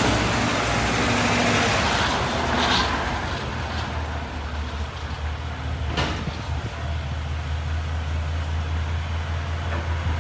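Cadillac Escalade 6.2-litre V8 running through a Borla S-Type cat-back exhaust: louder for the first few seconds, then settling into a steady, deep idle drone. A single sharp click about six seconds in.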